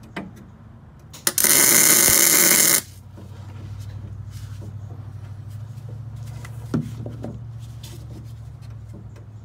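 A welder striking an arc for a single tack weld on steel square tubing: one loud burst about a second and a half long, just after a couple of quick clicks. A steady low hum runs on after it.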